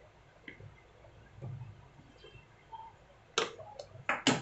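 Four sharp knocks and clicks within the last second, the last one the loudest: a small power-supply circuit board with its wires being set down on a workbench.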